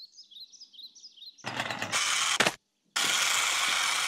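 Cartoon sound effect of a toy remote-control car's motor: two loud buzzing runs with a rapid clatter, the first starting about a second and a half in and lasting about a second, the second starting about three seconds in, with a short break between. Soft bird chirps come before it.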